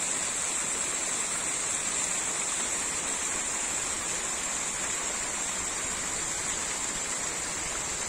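Steady rush of water from a small ephemeral waterfall, a short-lived seasonal cascade tumbling over rocks.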